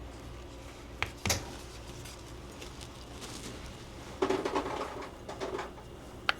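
Sharp metal clicks and a short clatter of handling as a rear-sight pusher tool is fitted and adjusted on a Glock pistol slide: two clicks about a second in, a run of rattling knocks past the middle, and a last click near the end.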